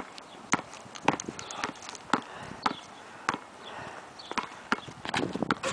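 A basketball dribbled on an asphalt court, bouncing about twice a second, with quicker bounces or running steps near the end.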